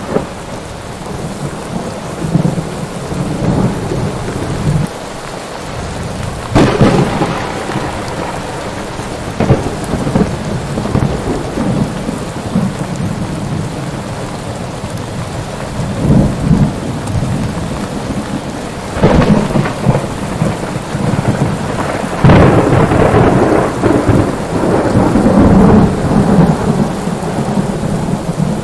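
Steady heavy rain with thunder: several sudden thunderclaps, then a long rolling rumble of thunder near the end.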